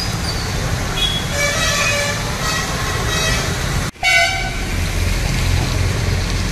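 Road traffic on a waterlogged street: vehicle horns honking over a steady low engine rumble. The sound drops out briefly about four seconds in, then the rumble carries on, with another short horn note.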